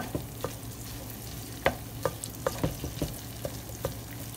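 Diced potatoes sizzling as they fry in oil in a pan, with a spatula stirring them and knocking against the pan at irregular moments.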